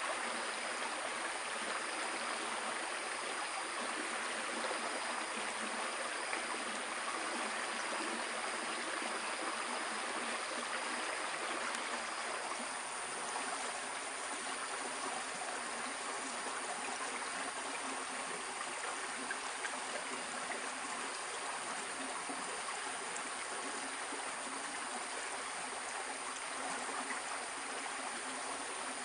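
Shallow forest stream running steadily, an even rush of flowing water.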